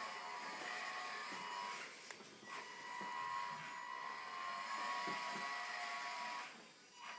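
Whine of an RC Land Rover Defender 110's small electric drive motor and gearbox as the model truck drives along, towing a trailer. It drops out briefly about two seconds in, comes back, and stops shortly before the end.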